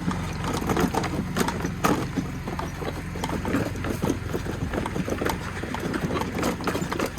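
A small vehicle's engine running steadily while the vehicle rolls over rough ground, with a stream of irregular crunches and clatters from the wheels.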